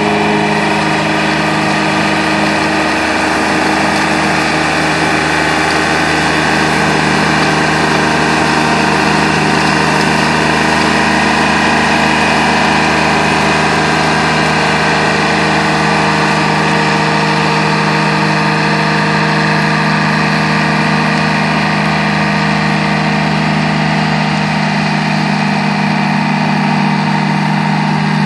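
Engine of a remote-controlled tracked slope mower running steadily at an even speed while it mows tall grass.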